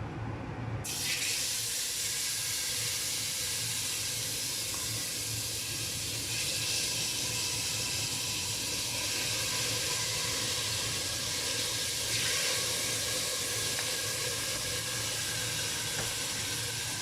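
Chicken masala sizzling in hot ghee in a pot: a steady hiss that starts suddenly about a second in.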